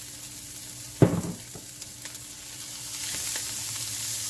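Corn kernels, butter and olive oil sizzling in a frying pan, with one sharp knock about a second in. Near the end the sizzle grows louder as the corn is stirred with a silicone spatula.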